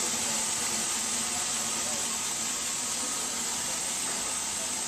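A steady, even hiss, like steam escaping from the standing train.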